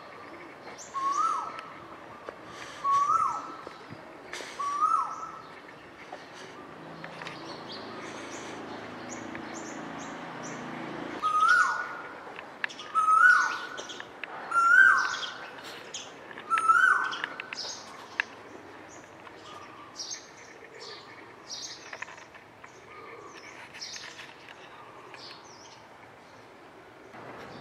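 A bird repeating a loud whistled call, a short note that rises and then drops, in two series of four about two seconds apart, the second series louder. Fainter high chirps of other small birds run throughout.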